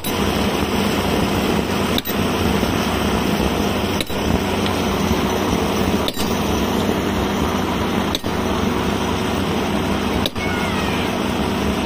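Steady roar of a gas torch flame heating a rail end for welding, broken by a brief dip about every two seconds.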